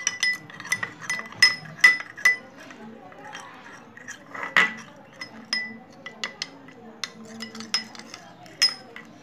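Steel spoon clinking and scraping against a glass bowl while stirring ground spices and water into a paste: sharp ringing clinks at an uneven pace, a few a second, with one louder scrape about four and a half seconds in.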